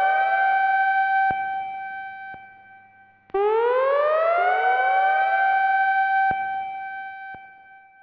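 Japanese municipal disaster-warning loudspeaker siren sounding the major tsunami warning pattern. It gives two wails, each rising to a steady high tone, held about three seconds, then stopping with a click and dying away slowly. A second, slightly delayed siren trails each rise.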